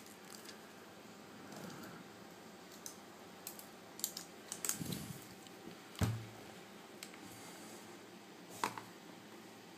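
A few light, scattered taps and clicks from the newly reassembled iPad 2 being handled and touched, with one sharper knock about six seconds in.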